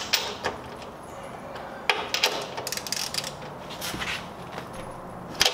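Scattered sharp metal clicks and clinks of hand tools being worked on a car's strut-tower nuts, with a run of quick clicks about two to three seconds in.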